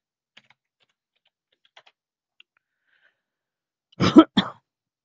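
Faint scattered clicks of a computer keyboard and mouse, then a loud, short double thump about four seconds in.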